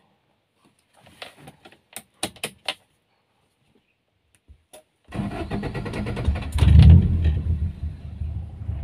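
Keys clicking in the ignition of a 1990 Honda Civic, then about five seconds in its four-cylinder engine is started, flares up briefly and settles into a steady idle. It is a cold start to warm up a car that has sat unused for a long time.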